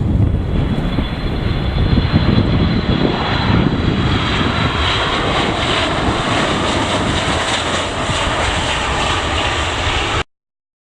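Jet airliner engines passing, with gusty wind buffeting the microphone. A thin high whine fades over the first few seconds as a broad engine hiss builds, and the sound cuts off suddenly near the end.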